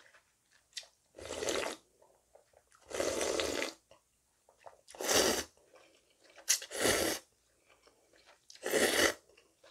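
Five loud wet slurps with short pauses between them: cold naengmyeon broth sipped from a bowl, then a mouthful of the noodles slurped up.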